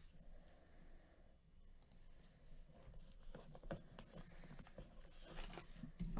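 Faint scratching and crinkling of plastic shrink wrap being picked at and peeled off a cardboard card box by gloved fingers, with scattered small clicks that grow busier in the second half.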